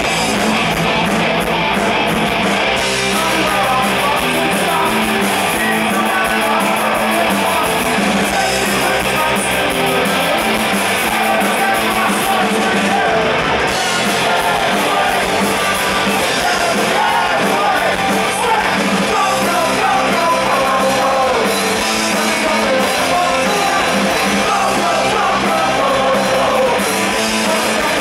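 Live punk rock band playing: yelled singing over electric guitars and drums, heard through the stage PA.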